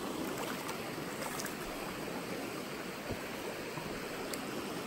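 Shallow creek water running steadily over rocks, with a few faint ticks.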